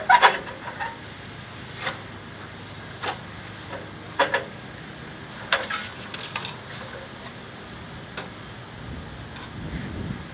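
Aluminum siding sheet and a portable sheet-metal brake clicking and clanking as the sheet is positioned, clamped and bent into a corner post: a cluster of sharp knocks at the start, then single clicks every second or so, with a low rumble near the end.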